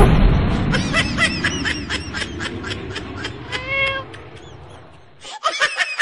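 Kitten making a run of quick high chirps and one short, steady meow, over a low rumble that fades out about five seconds in.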